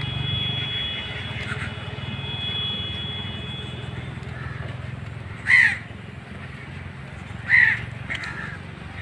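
A crow cawing twice, about two seconds apart, over a low steady engine rumble.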